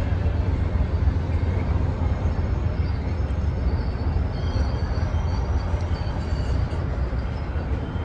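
A passing train's steady low rumble, slowly growing fainter.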